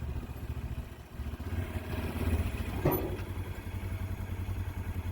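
Motor vehicle engine idling with a steady low rumble, with a single clatter about three seconds in.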